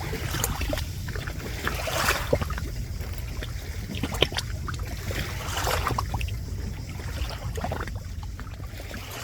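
Sea water splashing and lapping in many small irregular splashes over a steady low rumble of wind on the microphone.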